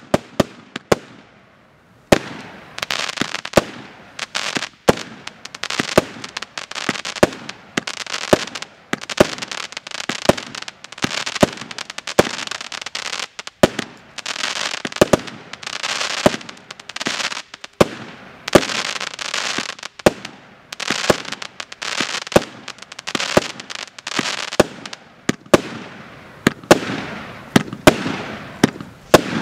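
A 100-shot, 0.8-inch-calibre Joker Fireworks battery (JF C20-100/01) firing shot after shot, about one to two a second. Each sharp launch report is followed by a burst of crackling from the crackle stars and palms. There is a brief lull about a second in, then the rapid firing resumes.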